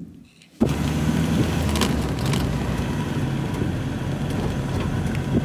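Steady road and engine noise inside a moving passenger van, starting abruptly about half a second in.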